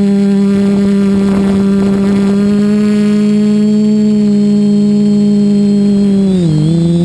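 Multirotor drone's electric motors and propellers humming steadily at one pitch, heard from the camera the drone carries. There is a brief rush of noise a second or two in, and about six and a half seconds in the pitch dips briefly and comes back up as the motors slow and speed up again.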